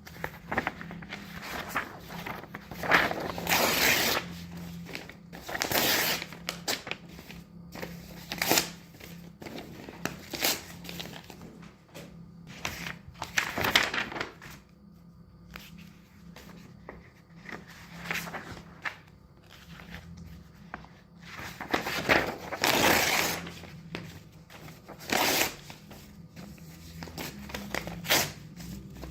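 Sheets of paper handled at a desk: pages flipped and paper torn, heard as separate bursts of rustling and ripping, each lasting about a second, with a low steady hum underneath.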